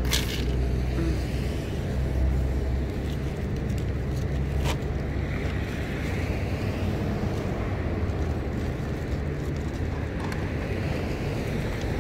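Steady low outdoor rumble, with two sharp clicks, one just after the start and one nearly five seconds in.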